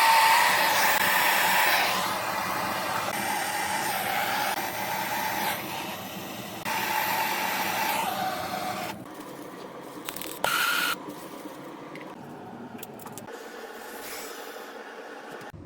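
Steady rushing hiss in short abrupt segments, dropping quieter about nine seconds in, with a brief higher tone at about ten and a half seconds.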